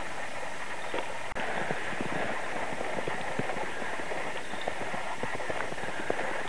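Footsteps crunching in fresh snow: a quick, irregular patter of small crunches that starts about a second in, over a steady hiss.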